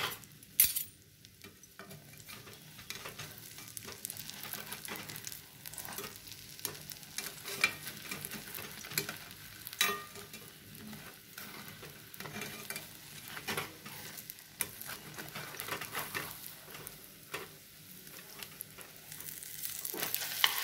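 Egg and onion omelette sizzling in hot oil in a frying pan, with a steel slotted spatula scraping and clicking against the pan as it is worked under the omelette. The sizzle grows louder near the end as the omelette is turned over.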